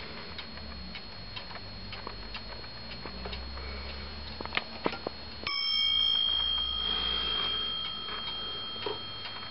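Warmink Dutch Sallander wall clock ticking, then its striking train hits the dome bell once about five and a half seconds in, the note ringing out and fading over a few seconds. The strike is set off by the minute hand being turned by hand.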